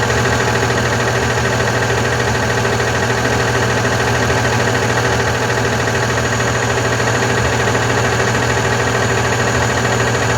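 Diesel engine of a Volkswagen Constellation 19.320 truck idling steadily.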